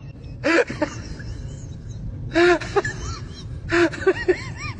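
A person's voice in three short, breathy bursts, each rising and falling in pitch, over a steady low rumble.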